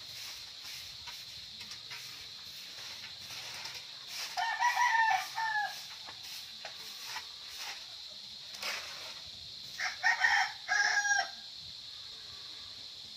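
A rooster crows twice, about four seconds in and again near ten seconds. Between and under the crows come the scratchy strokes of a stick broom sweeping a dirt yard.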